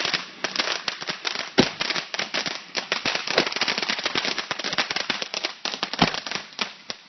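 Firecrackers popping in rapid succession, a dense crackle of sharp reports with a few louder bangs about a second and a half in and again near six seconds, dying away near the end.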